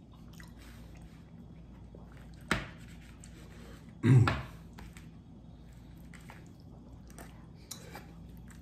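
Quiet eating sounds: a metal spoon working in a takeout bowl of burrito, with a sharp tap about two and a half seconds in and a louder clunk about four seconds in, between faint chewing.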